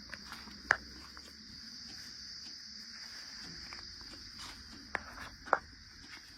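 A steady high-pitched drone of insects, with a sharp knock under a second in and two more near the end.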